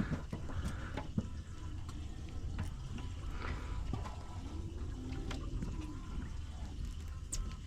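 Water sloshing and splashing against a fishing boat, over a steady low rumble, with a few faint clicks.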